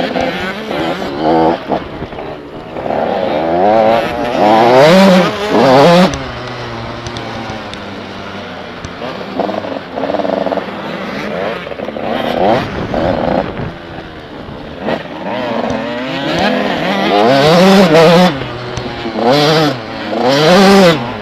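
85 cc enduro motorcycle engine heard from on board while riding, revving up and dropping back again and again as the rider accelerates and eases off through the course, with a few loud full-throttle pulls.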